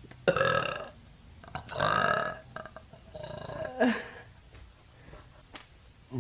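A young woman burping three times, each burp lasting about half a second to a second, spaced about a second and a half apart.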